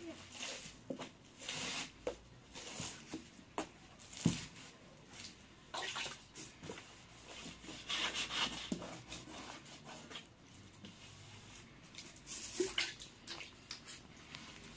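Bread dough being kneaded by hand in a metal basin: irregular wet squishing and rubbing, with a sharp knock about four seconds in.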